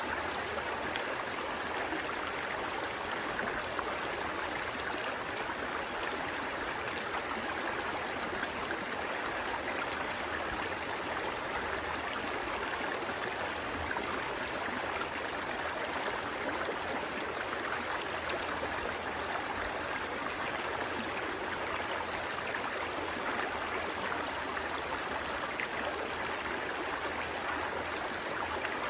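Steady rush of water flowing in a stream, an even noise that does not change.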